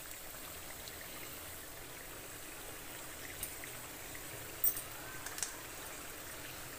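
Faint steady hiss of the pot cooking on low heat, with a few brief crinkles and clicks about four and a half and five and a half seconds in as a carton of cream is squeezed out over the chicken.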